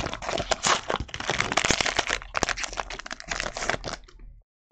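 Trading cards and their pack wrappers being handled: a dense run of crinkling and small clicks that cuts off abruptly near the end.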